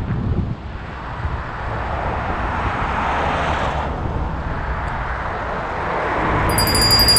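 Car driving on a city street: steady road and engine noise that swells in loudness twice. Near the end a brief high electronic chime with fast ticking starts.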